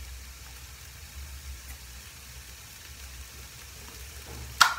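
Faint steady sizzle of mince and bell peppers frying in a pan, with a single sharp click near the end.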